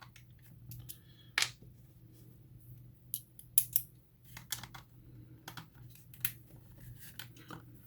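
Irregular small clicks and taps of a screwdriver and the inflator's plastic casing being handled during disassembly, with a few sharper clicks among them.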